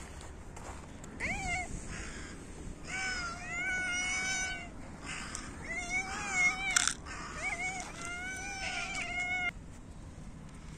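A hungry cat meowing repeatedly, about six drawn-out rising-and-falling meows, some short and some long. A single sharp click, the loudest sound, comes about two-thirds of the way through.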